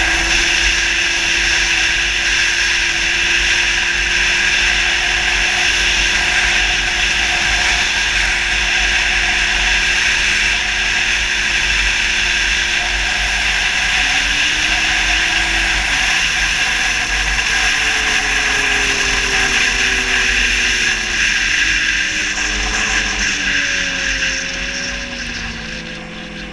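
2007 Yamaha Attak snowmobile's four-stroke four-cylinder engine running steady at high speed over a loud rushing hiss. About halfway through its pitch starts to waver and swing up and down, then falls, and near the end the engine winds down and the sound fades as the sled slows.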